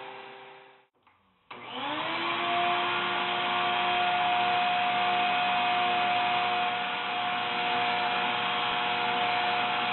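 Vacuum motor of a home-made vacuum former spinning up about a second and a half in, its pitch rising and then settling into a steady run as it pulls the foam sheet down. Before it, another steady motor sound fades and cuts off just under a second in.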